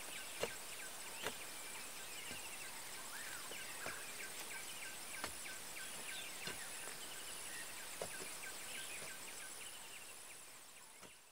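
Outdoor nature ambience: a steady, high, evenly pulsing insect drone with birds chirping over it, and a few sharp clicks scattered through. It fades out near the end.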